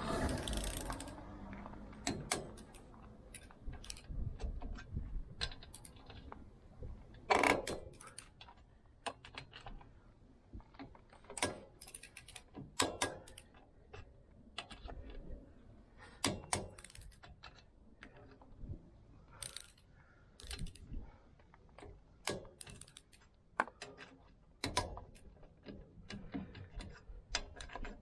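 Irregular metallic clicks and clinks of hand tools being handled, with a louder knock about seven and a half seconds in.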